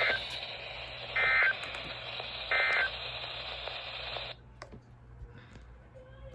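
Emergency Alert System end-of-message data bursts on a NOAA Weather Radio broadcast: three short digital bursts about a second and a half apart, closing the special marine warning. A steady radio hiss lies under them and cuts off about four seconds in.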